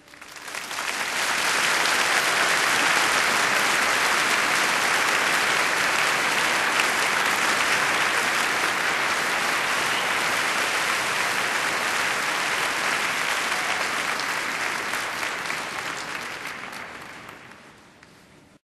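Audience applauding, swelling in over the first second or two, holding steady, then fading out near the end.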